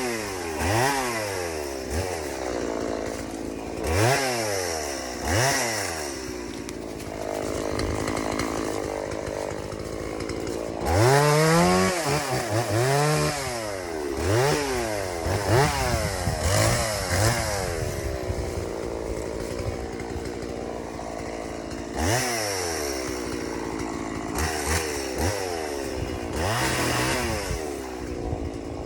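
Stihl MS 170 two-stroke chainsaw revving again and again, its pitch climbing sharply and falling back toward idle, with a couple of longer stretches held at high revs.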